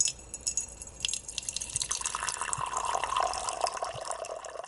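Water splashing and trickling, with many small drips and splashes, fading away near the end.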